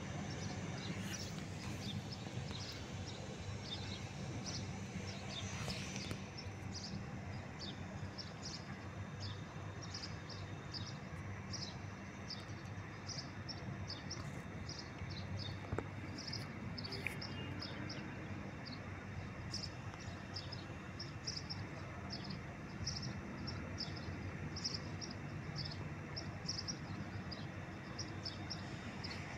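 Steady outdoor background noise with rapid, high-pitched chirping running over it, several short chirps a second.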